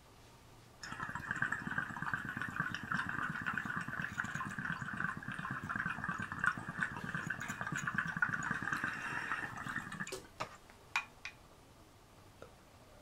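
Water bubbling steadily through a glass dab rig as a long dab hit is drawn through it. The bubbling starts about a second in, lasts about nine seconds and stops suddenly. A few light clicks follow.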